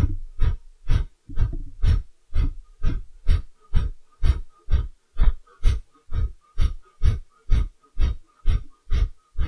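Kapalabhati yoga breathing: quick, forceful exhalations pushed out through the nose by pulling in the belly, about two a second, each a short sharp puff like snorting, with the in-breaths coming passively in between.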